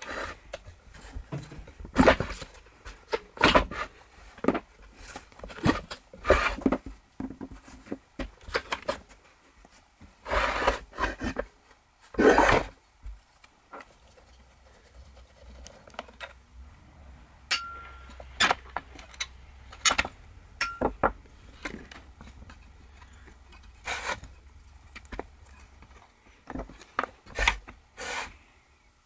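Metal housing parts and screws of a Homelite XL-100 gas circular saw being handled and taken apart on a wooden bench: scattered knocks, clinks and scrapes as the recoil starter cover comes off, with two longer scrapes about ten and twelve seconds in.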